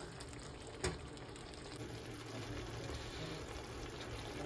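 Kadai paneer gravy simmering faintly in a nonstick pan, a soft bubbling sizzle, with one light click about a second in.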